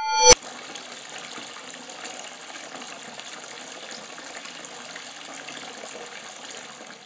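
A swelling ringing tone ends in a sharp hit just after the start, then a steady rush of water, an underwater ambience, which cuts off just before the end.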